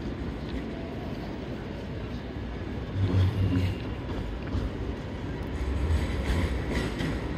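Low rumble of passing road and rail vehicles, swelling louder about three seconds in.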